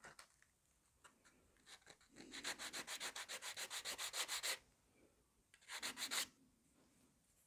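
Small wooden model-ship parts being hand-sanded on a sanding block: quick, even back-and-forth strokes, about eight a second, for a couple of seconds, then a shorter run of strokes near the end.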